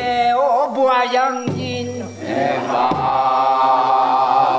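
A group of voices chanting together: a wavering, rising-and-falling phrase in the first second and a half, then from about two seconds in the voices hold one long steady note.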